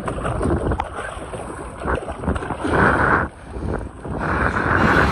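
Water splashing as a gaffed tuna thrashes at the surface beside the boat and is hoisted out, with the heaviest splashing about three seconds in. Wind buffets the microphone underneath.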